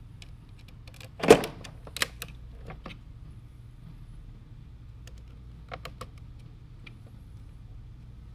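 Short clicks and taps of a small nut, washer and ring terminal being handled and fitted by hand onto a 12-volt battery's positive terminal bolt. The loudest knock comes about a second in, a few lighter clicks follow around two to three seconds, and a short cluster near six seconds, over a steady low hum.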